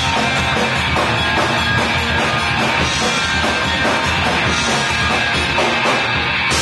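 Live rock band playing loud, with electric guitars over a drum kit keeping a steady beat.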